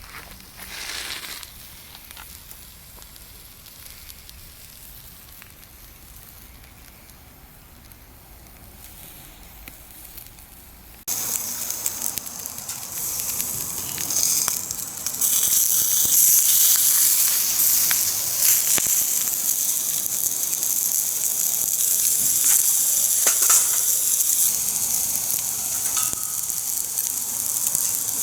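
Salmon belly frying in a pan over a wood fire: a low crackle at first, then about a third of the way in a sudden loud sizzle that keeps going as the fish fries in its own rendered fat.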